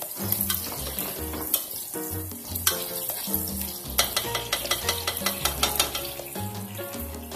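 Onions and garlic sizzling in vinegar and soy sauce in a pot while being stirred, with repeated clicks of the utensil against the pot. Background music plays underneath.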